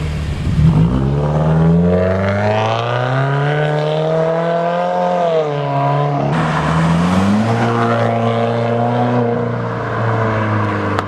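Subaru WRX turbocharged flat-four engine revved through a Subispeed axleback muffler-delete exhaust. The revs climb slowly to a peak about five seconds in and drop, then rise again and hold for a couple of seconds before falling back to idle near the end. The revving is a check for leaks after the axleback install.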